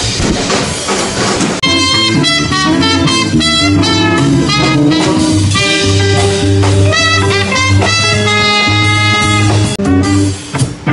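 Live band playing an instrumental stretch of a blues-rock tune, a horn carrying held notes over a steady bass and drum beat.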